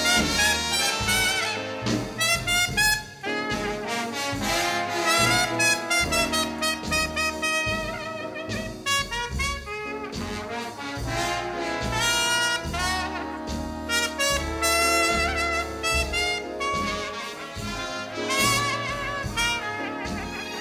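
Music: a jazz trumpet playing an instrumental passage with a wide vibrato over a string orchestra, bass and drums, in a slow orchestral jazz ballad.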